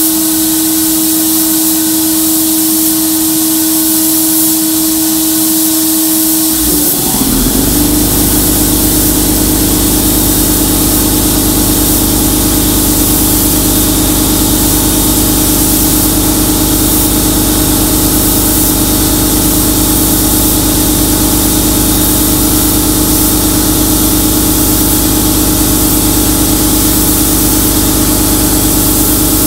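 Glass bead blast cabinet in use: steady hiss of compressed air and glass beads from the blast gun, over the drone of the cabinet's dust-collector vacuum. About seven seconds in, a second motor spins up and adds a low hum that runs on.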